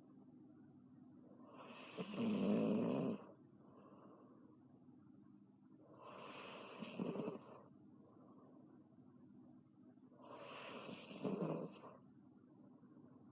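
A girl snoring loudly: three long snores about four seconds apart, the first the loudest.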